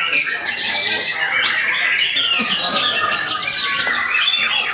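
Many caged songbirds singing at once in a contest field, a dense, continuous tangle of overlapping chirps, trills and squawks.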